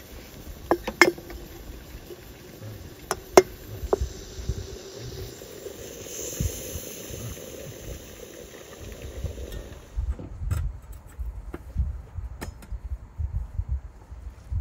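Metal lid and glass clinking, then hot water running from a samovar's tap into a glass teapot of dried flowers and herbs, a steady hiss that swells near the middle. About ten seconds in it stops and gives way to a low rumble with a few scattered knocks.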